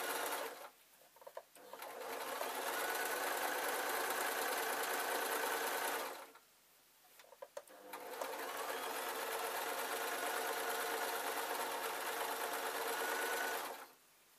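Electric sewing machine stitching a long skirt hem, running steadily in three spells with two short pauses between them, then stopping near the end.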